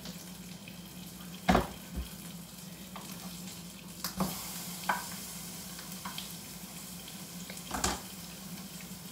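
Beyond Burger patty and Beyond Sausage frying in a pan, a steady sizzle, with several sharp knocks of kitchenware at the counter.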